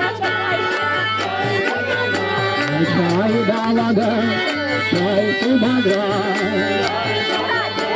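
Devotional kirtan music: a voice singing a wavering melody over a hand drum and a steady, even percussion beat.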